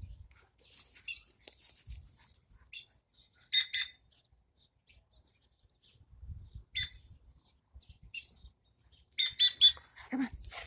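Pet bird giving short, sharp chirping calls, about nine in all, some single and some in quick runs of two or three.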